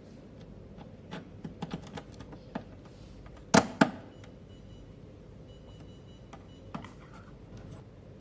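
Small hard clicks and knocks from parts being handled during machine setup, with two loud sharp clicks about three and a half seconds in and a faint high steady tone for a few seconds after them.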